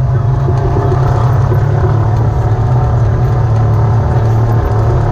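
Off-road vehicle's engine running steadily, heard from on board while driving a rough dirt trail, with a strong, even low hum.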